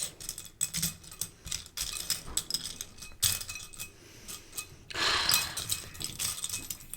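Plastic Lego pieces clicking and clattering as a hand rummages through them, with a longer rattling shuffle about five seconds in.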